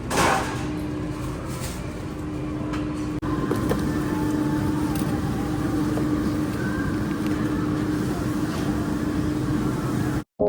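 Steady rumbling background noise with a constant low hum. A brief loud rustle comes right at the start, and the sound cuts off abruptly just before the end.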